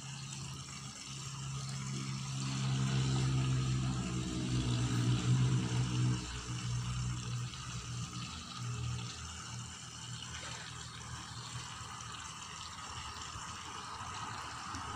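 A low motor hum swells over a few seconds and then fades, over a steady watery hiss.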